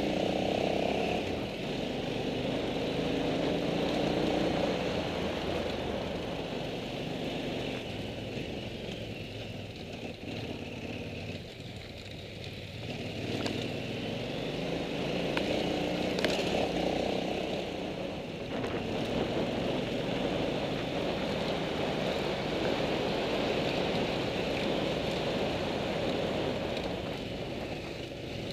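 Motorcycle engine running at low speed on a gravel climb, its note rising and falling with the throttle.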